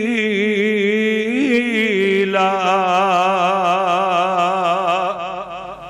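A man's voice in melodic Quranic recitation (tajweed), drawing out the closing word "jamila" of the verse in one long, wavering held note. The vowel shifts about two seconds in, and the note fades near the end.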